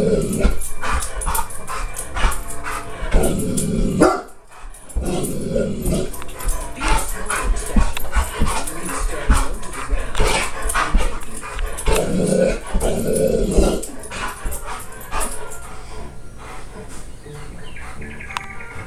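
Bernese mountain dog barking in repeated bursts at a television, with the TV's nature programme soundtrack and music running underneath.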